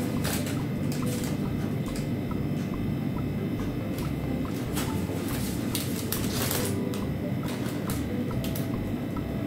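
A plastic piping bag rustles and crinkles a few times as gloved hands squeeze marshmallow paste through a leaf tip. Under it runs a steady low hum.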